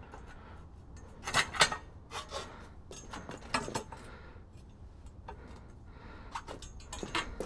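Light metallic clinks and knocks in short uneven clusters, about a second in, around three and a half seconds, and near the end, as a metal-ended pole is handled.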